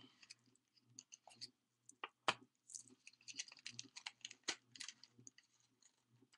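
Irregular small clicks and taps of craft supplies being handled on a tabletop, with two sharper taps about two seconds and four and a half seconds in.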